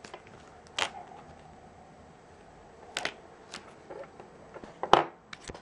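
Plastic shrink-wrap on a DVD box set being slit and pried along the spine with a thin blade: a few sharp crackles and clicks of the film, the loudest near the end.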